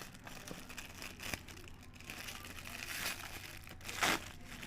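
Packaging being cut open with a blade and pulled apart by hand: irregular crinkling and rustling of the wrapping, with small clicks and a louder rustle about four seconds in.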